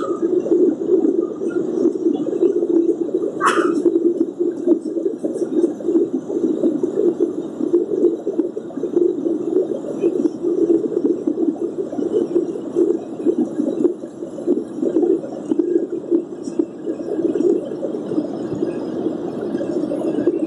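Steady cabin noise of a Boeing 737-800 climbing after takeoff, heard from a window seat over the wing: the jet engines and airflow make a dense, muffled rumble that sounds a bit like it's under water. A brief sharp click sounds about three and a half seconds in.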